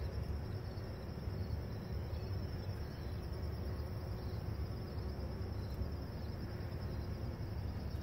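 Faint buzzing of a bee working pumpkin flowers under an evenly pulsing high insect trill, over a steady low outdoor hum.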